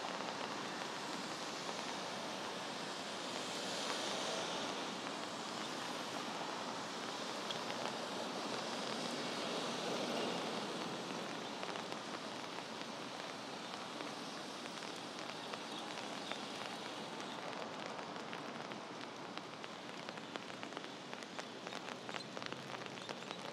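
Steady rain pattering on an umbrella overhead, a dense patter of drops. Under it runs a hiss of traffic on the wet road that swells twice, a few seconds in and again about ten seconds in.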